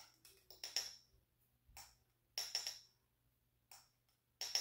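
A metal measuring spoon clinking and tapping against containers as dry yeast is spooned into the saucepan: short, bright metallic clinks in small clusters, about six times.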